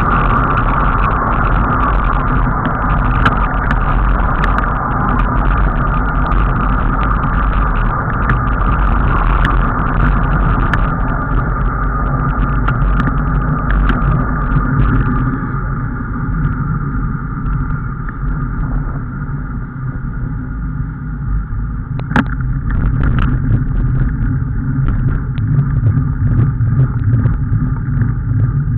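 Steady low rumble of travel noise picked up by a camera riding on a moving vehicle, with scattered sharp clicks and a knock about two-thirds of the way through.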